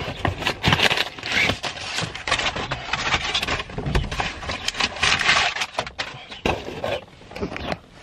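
Crumpled kraft packing paper rustling and crinkling as hands dig through a cardboard box, with cardboard flaps rubbing, in irregular crackling bursts.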